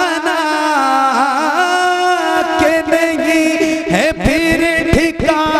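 A man singing a naat, holding long wavering melismatic notes without words, through a microphone and PA with a heavy echo-delay effect that layers the notes over one another.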